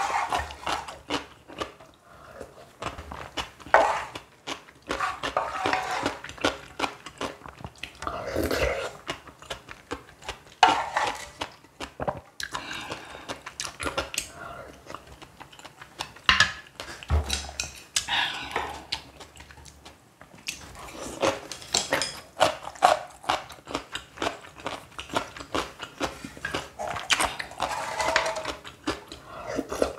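Close-miked mukbang eating sounds: utensils clicking against a bowl, mixed with chewing and biting of food.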